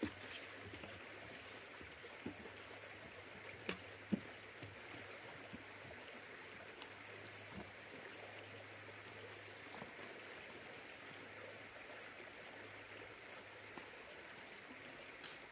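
Creek water flowing steadily under a footbridge, a soft, even rush, with a couple of faint clicks about four seconds in.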